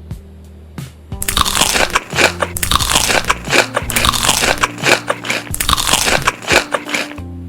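Loud, rapid crunching of someone biting and chewing crunchy food, starting about a second in and stopping shortly before the end, over background music.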